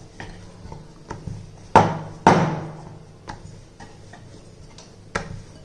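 Thin wooden rolling pin knocking and clicking against a round wooden board while chapati dough is rolled out: scattered wooden knocks, the two loudest close together about two seconds in.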